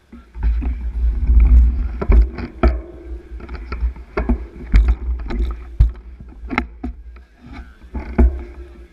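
Low rumble and buffeting on the microphone of a camera riding on a bicycle, starting abruptly, with irregular sharp clicks and knocks from the bike as it rolls in a slow-moving bunch of cyclists.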